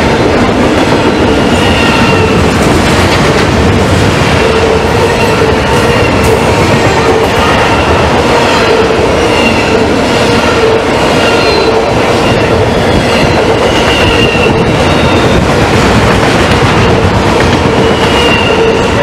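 Norfolk Southern intermodal freight train's loaded well cars passing close by: a loud, steady rumble of steel wheels on rail with clickety-clack from the rail joints. Short high-pitched wheel squeals come and go every second or two.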